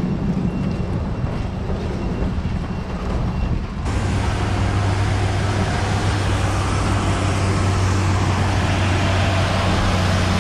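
Steady drone of heavy truck engines running. About four seconds in the sound changes abruptly to a louder, deeper, even hum with more hiss, as a container yard tractor runs close by.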